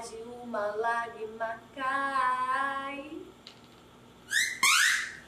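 A woman's voice in drawn-out, sing-song vocalizing with a long wavering held note, then two quick, loud rising squeals near the end.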